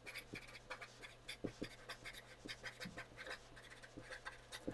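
Felt-tip marker writing on paper: faint, quick scratching and squeaking strokes as letters are drawn one after another.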